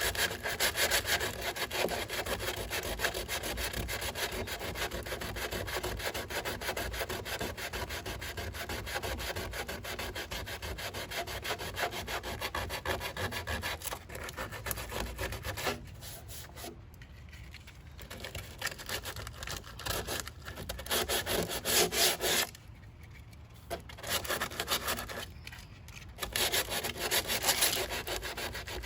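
Sandpaper sanding hardened body filler on a car panel, a continuous scratchy rubbing broken by three short pauses in the second half, knocking down filler built up in a body crease.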